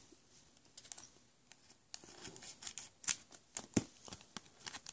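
Pokémon Pop Series 5 booster pack wrapper crinkling in the hands as it is handled, a scattered string of light clicks and rustles, the sharpest a little after three seconds in and again near four.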